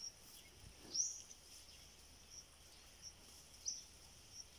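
Short, high-pitched chirps repeating every second or so, the loudest a quick rising chirp about a second in, from a small bird or insect calling.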